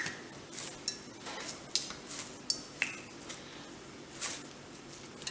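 Slotted metal skimmer tapping and clinking against the rim and side of a kadhai, about half a dozen sharp taps, over the faint steady sizzle of a poori deep-frying and puffing in hot oil.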